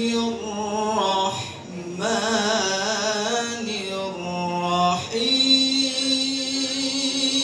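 Quran recitation in the melodic tilawah (nagham) style by a single voice: long held notes with ornamented, wavering pitch turns, broken by two short breaths.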